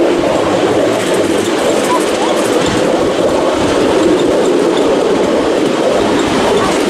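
Miniature railway train, hauled by a miniature BR class 31 locomotive, running along the track, heard from a passenger car riding behind it: a steady, loud running noise of wheels on rail.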